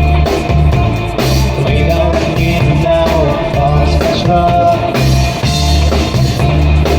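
Background music with a heavy, regular bass beat, an instrumental stretch of a rap track.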